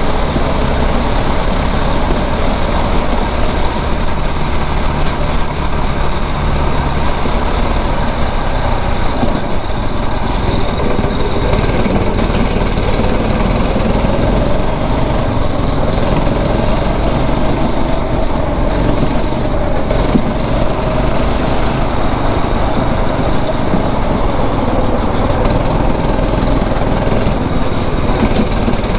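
A 9 hp kart engine running steadily under load, its note rising and falling as the kart speeds up and slows through the corners.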